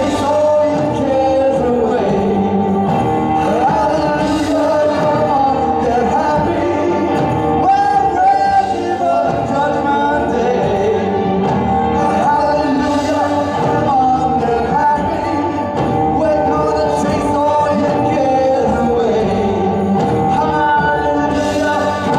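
Live pop performance: a male lead vocal sung through a microphone over a band of piano, upright double bass, drums and trumpet.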